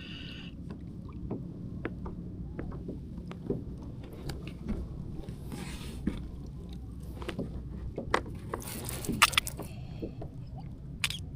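Scattered small knocks and clicks of handling gear aboard a kayak, with a cluster of sharper, louder clacks about eight to nine seconds in and one more near the end, over a steady low rumble.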